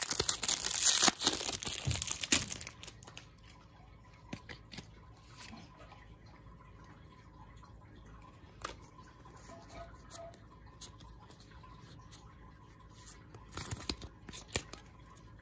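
Foil wrapper of a Pokémon trading card booster pack being torn open and crinkled for the first two or three seconds. After that, soft scattered clicks and rustles as the cards are pulled out and handled.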